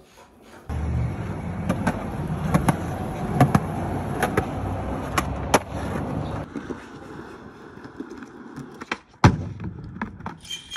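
Skateboard wheels rolling on concrete: a steady low rumble with several sharp clacks of the board. The rolling stops about six seconds in, and one loud board smack follows about nine seconds in.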